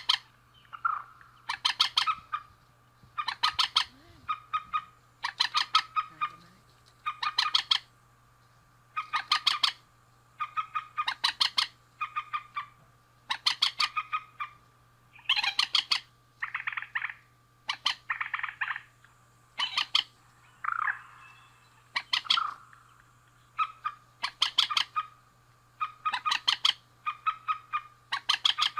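Rail (burung mandar) calling over and over: short harsh rattling calls made of rapid pulses, roughly one every second or so, over a faint steady hum.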